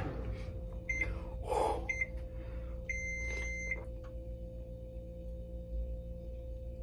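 Electronic timer beeping: two short high beeps about a second apart, then a longer beep lasting most of a second, over a steady low hum.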